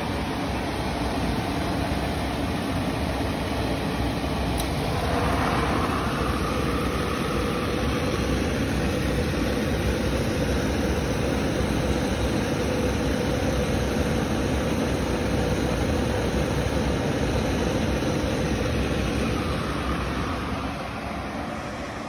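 Carlin commercial oil burner firing on a steam boiler: a steady rushing noise of blower and flame with a faint steady hum. It eases slightly near the end.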